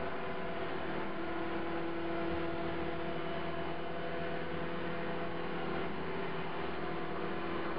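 CopterX 450 SE V2 electric RC helicopter running at a steady rotor speed with a buzzing hum that holds one pitch. It appeared after a crash, and the owner guesses bent main blades, which are also out of track.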